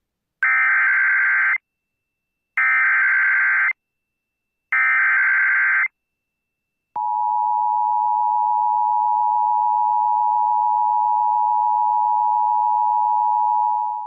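Emergency Alert System opening sequence: three bursts of SAME header data, each about a second long and harsh and buzzy, about a second apart. After a short silence the steady two-tone EAS attention signal starts about seven seconds in and holds. The signal announces a new severe thunderstorm warning from the National Weather Service.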